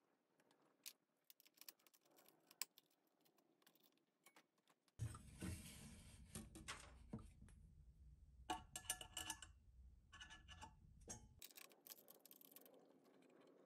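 Faint clicks and metallic clinks of KF25 vacuum fittings, centering rings and quick clamps being handled and fitted together. In the middle stretch a low hum sits underneath and a few clinks ring briefly, like small metal parts knocking together; the sound stops abruptly about two seconds before the end.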